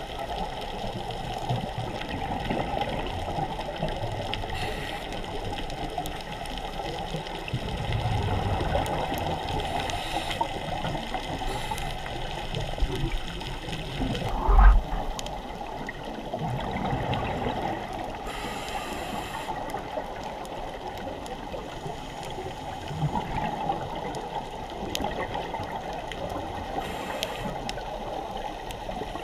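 Underwater ambience picked up by a camera in its housing while scuba diving: a steady watery rush with uneven swells and gurgles, and one short, loud knock about halfway through.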